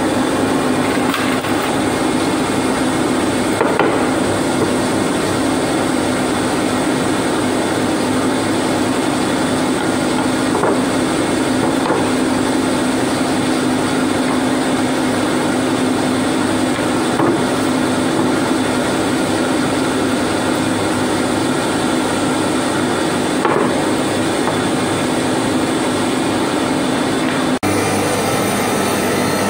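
MSP-800 multi-blade circular saw machine running and ripping glued plywood boards fed through on its driven rollers: a steady loud saw-and-motor noise over a low hum, with a few single knocks as the boards pass through. The sound shifts abruptly near the end.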